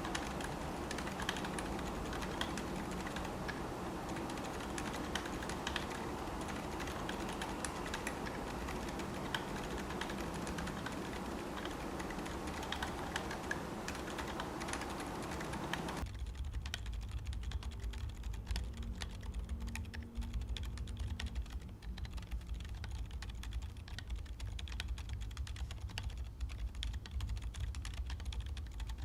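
Continuous typing on a Qwertykeys QK80 mechanical keyboard with SW x TTC Peanut Latte silent tactile switches, an aluminium plate, no foam and a gasket mount: a dense run of soft key presses. About halfway through, the sound abruptly changes as the recording switches from the camera microphone to a different microphone.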